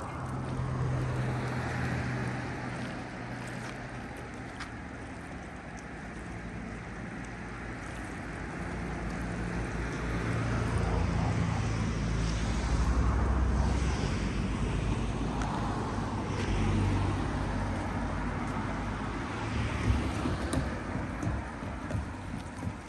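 Road traffic: a car engine running close by, with a low hum that swells to its loudest around the middle and then eases off.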